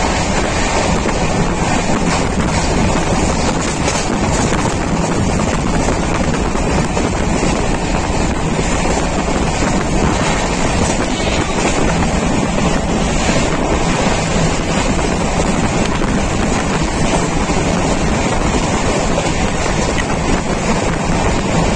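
Steady rush of wind buffeting the microphone at an open window of a moving train, over the train's running noise.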